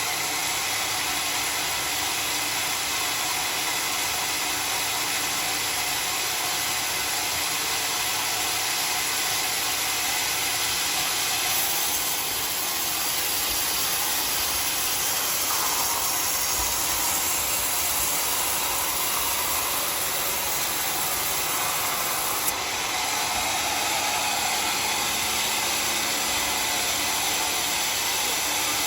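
Homemade sawmill running and sawing dry acacia wood: a steady, hissy machine noise with no pauses. The tone shifts slightly about a third and two-thirds of the way through.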